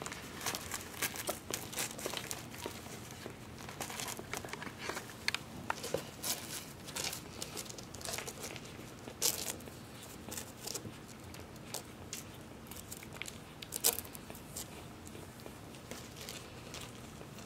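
Irregular rustling and crinkling with short crackling clicks, sharpest about nine and fourteen seconds in.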